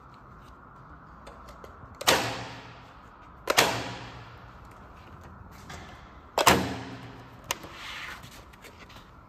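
Isaberg Rapid A106 electric stapler firing three times. Each staple is driven with a loud, sharp clack that dies away quickly, and a fainter click follows near the end.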